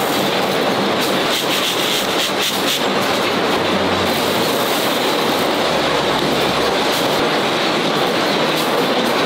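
Masses of small metal rivet parts pouring and sifting through plastic mesh baskets: a dense, steady metallic rattling and clinking.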